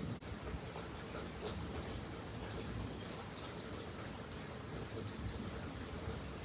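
Rain falling steadily, an even hiss with a low rumble underneath; the sound drops out for an instant just after the start.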